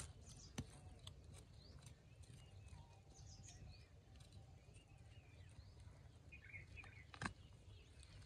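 Near silence: a small hand digging tool knocking into dry forest soil a few times, one sharper knock about seven seconds in, with birds chirping faintly in the background.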